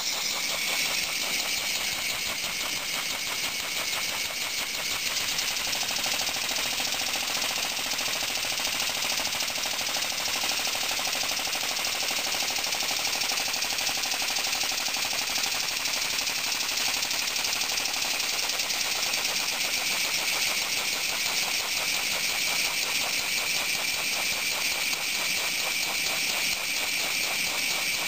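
PM Research No. 3A model horizontal mill engine running steadily at speed: a fast, even beat of exhaust puffs and mechanism clatter over a constant hiss.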